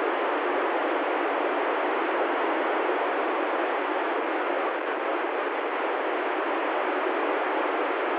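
Steady FM static hiss from an ICOM ID-51 handheld transceiver's speaker, tuned near the ISS voice downlink on 145.805 MHz, with no voice on the channel.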